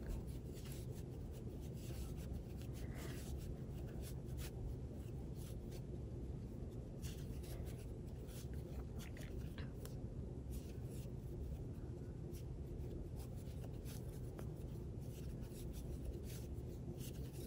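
Faint scratchy rubbing of a plastic crochet hook drawing loops through chunky yarn while puff stitches are worked, over a low steady hum.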